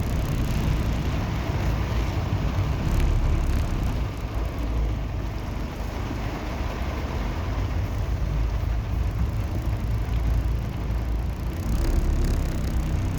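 Strong wind buffeting the microphone as a heavy, fluctuating low rumble, over a steady hiss of rain.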